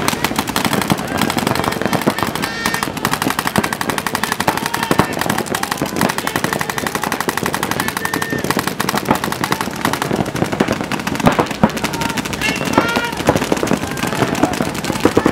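Paintball markers firing in rapid, near-continuous strings of shots from several players during a match.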